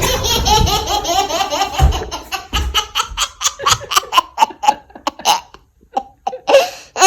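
A baby laughing hard at a door being slammed: one long run of rapid belly laughs, then shorter and shorter bursts of giggling with gaps between them.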